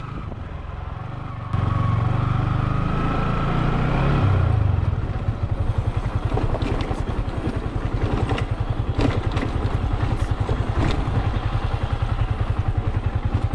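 Motorcycle engine running as the bike rides slowly over a rough dirt track. It gets louder about a second and a half in and rises in pitch for a few seconds, then settles into a steady pulsing run with scattered knocks and clatter from the bike going over stones.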